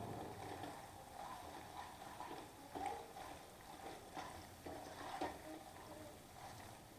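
A spoon mixing macaroni and tomato sauce in a kadhai: faint, soft stirring with a few light knocks of the spoon against the pan.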